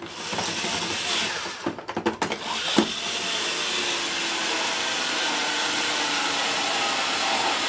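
Cordless electric screwdriver driving a Torx screw into the plastic casing of a Miele S8 vacuum cleaner, its motor running with a steady whir. About a second and a half in it stops briefly with a few clicks, then runs on steadily after a sharp click near three seconds in.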